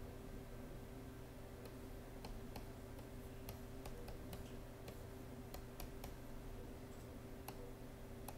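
Faint, irregular clicks and taps of computer input, a stylus and mouse used to write and click on a digital whiteboard, over a steady faint electrical hum.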